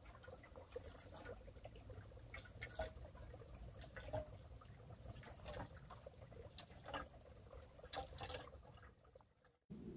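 MSR hand-pump water filter being pumped, filtered water pouring and trickling into a metal canteen, with irregular clicks and splashes.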